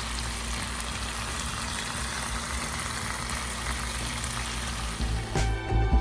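Thin steaks frying in a pan with minced garlic, a steady sizzle, under background music with a bass line; the music gets louder and more rhythmic about five seconds in.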